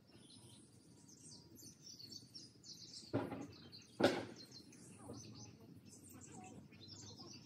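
Small birds chirping, with two heavy thuds about three and four seconds in, the second one louder.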